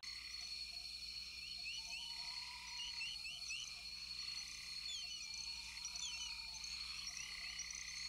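Faint nature ambience of small animal calls: clusters of quick rising chirps repeating every second or so over a steady high-pitched trill.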